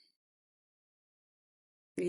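Near silence: a pause between sentences of speech, with the audio apparently gated to digital silence.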